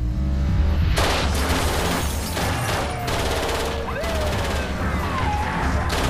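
Long, rapid bursts of automatic gunfire from a submachine gun fired out of a car window. The shooting starts about a second in and comes in two long volleys with a brief pause between them.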